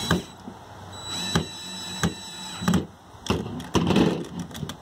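Cordless drill-driver whining in two short bursts as it drives a 10-24 stainless pan-head screw into a lock nut, with clicks between the bursts. Near the end there are knocks and rattles as the drill is set down on the plastic table.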